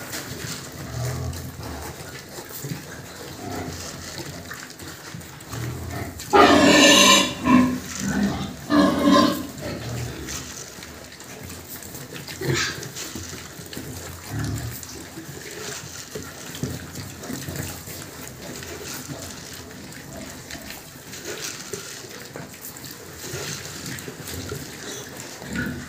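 A group of pigs feeding on grain scattered on the floor of their pen, with two loud squeals about six and nine seconds in, the first lasting over a second.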